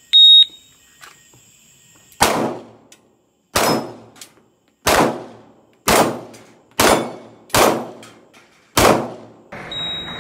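Electronic shot timer sounds a loud, high start beep, followed by seven shots about one to one and a half seconds apart, each ringing out briefly. Near the end comes a steady hiss and another short high timer beep.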